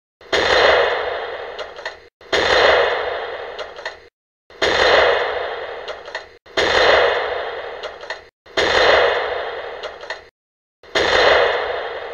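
Artillery gun firing sound effect: six heavy shots about two seconds apart, each dying away over a second or so and then cut off abruptly.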